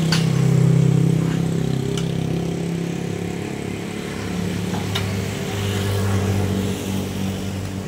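Small electric wire-rope hoist running as it lowers a hanging wheelbarrow: a steady motor hum that drops lower in pitch about halfway through, with a few sharp clicks.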